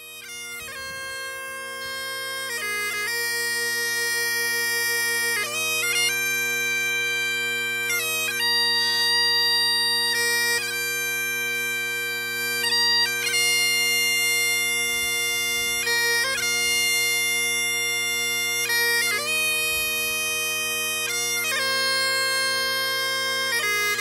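Great Highland bagpipes playing a slow tune of long held notes over steady drones, fading in over the first few seconds.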